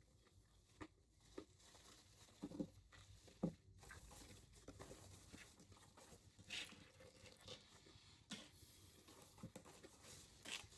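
Faint chewing and mouth sounds of a person eating a sandwich: soft, wet smacks and clicks scattered throughout, the loudest a couple of seconds in.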